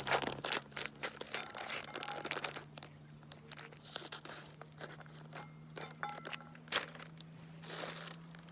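Irregular crunching and crackling, with a faint steady low hum underneath.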